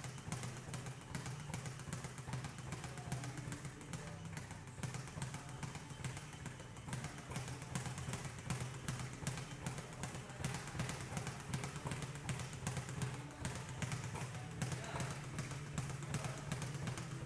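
Speed bag being punched continuously, rattling against its rebound platform in a fast, steady rhythm of rapid taps.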